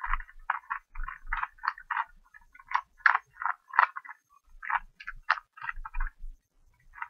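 Rubik's cube being turned by hand: the plastic layers clack and rattle in quick, uneven runs of clicks, about three a second.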